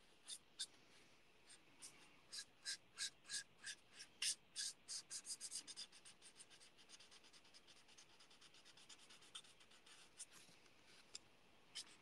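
Bullet nib of a Stampin' Blends alcohol marker scratching faintly on card in short colouring strokes, about three a second. The strokes turn quicker and fainter about halfway through.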